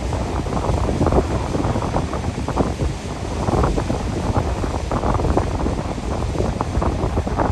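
Steady rushing of a large waterfall, mixed with gusts of wind buffeting the microphone.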